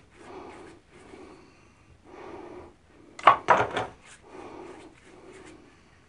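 Hands rolling plumber's putty between the palms into a snake: repeated soft swishes of skin rubbing on skin, about one stroke a second. A few sharper slaps or clicks come a little over three seconds in, the loudest sounds here.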